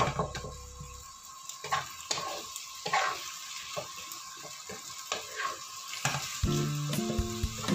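Wooden spatula stirring and scraping sliced zucchini, pork and mushrooms around a non-stick wok as they sizzle in the hot oil, in a quick run of short strokes. Background music fades out about a second in and comes back near the end.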